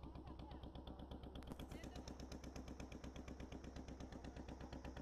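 Small boat engine running steadily with a rapid, even beat of about a dozen pulses a second over a low hum.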